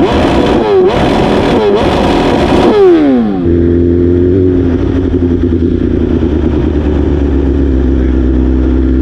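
2022 BMW S1000RR's inline-four engine pulling hard through quick upshifts, its pitch climbing and dropping three times over rushing wind. About three seconds in it winds down and settles into a steady, even idle.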